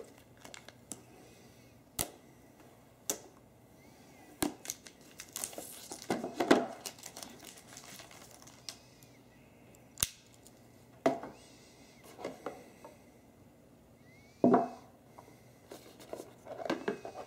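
Packaging being handled and opened: crinkling and tearing of plastic and cardboard, with scattered sharp clicks and taps from a hard clear plastic display case and a pocket knife. A louder knock comes near the end.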